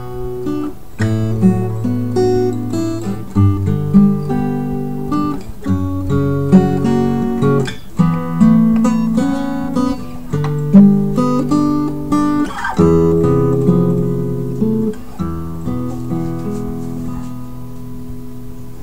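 Acoustic guitar music: plucked notes and strummed chords, growing quieter over the last few seconds.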